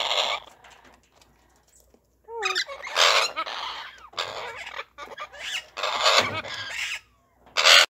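Amazon parrots, a mealy amazon and a red-lored amazon, giving loud, harsh squawks: one short squawk at the start, then a long run of rough calls from about two seconds in, and a last short squawk near the end.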